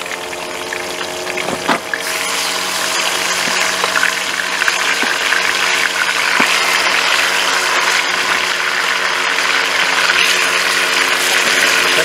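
Woodcocks wrapped in pork fat sizzling as they are browned in hot sunflower oil in an aluminium kazan over a wood fire; the sizzle swells about two seconds in, after a knock, as more birds are lowered into the oil.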